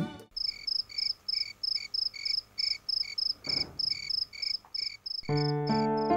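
Cricket chirping in an even rhythm, about four short high chirps a second. Soft keyboard music comes in about five seconds in.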